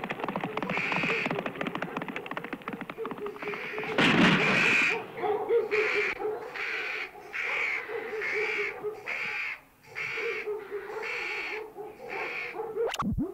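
Night-time outdoor ambience on a film soundtrack, with an owl-like call repeating about once a second over a steady wavering tone. There is a loud burst about four seconds in and a brief falling swish near the end.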